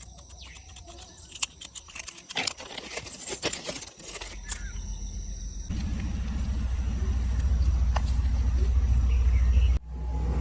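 A few sharp clicks and taps, then a train approaching: a low rumble with a rhythmic pulse that builds steadily louder from about halfway through, dropping out briefly just before the end.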